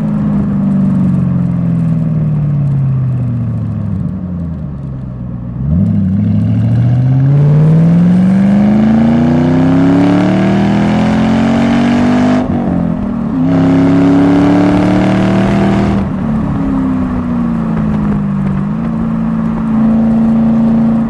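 Ford Mustang V8 engine under way: the pitch falls as it slows off the throttle, then rises steeply under hard acceleration, breaks briefly at a gear change about twelve seconds in, holds high for a few seconds and drops back to a steady cruise.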